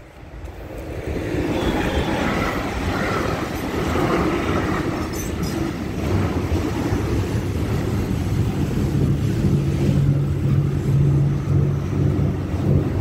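A train passing close by. Its noise builds over the first second or two, then runs on steadily, and a low steady hum comes in about two-thirds of the way through.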